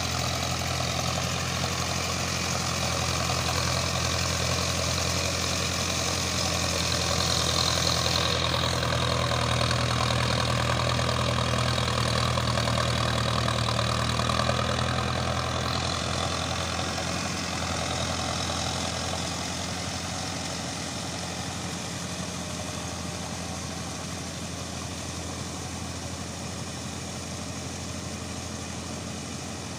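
Mahindra Arjun Novo 605 DI-i tractor's diesel engine running steadily while it pulls a rotavator puddling a flooded paddy field. The engine grows a little fainter over the last third as the tractor moves away.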